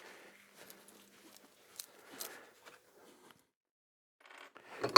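Faint scattered clicks and a few light knocks of tools and engine parts being handled on a workbench.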